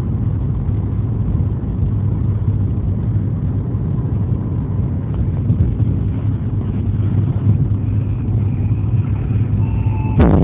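Steady low rumble of road and engine noise inside a car cabin at freeway speed. Loud electronic music from the car stereo cuts in right at the end.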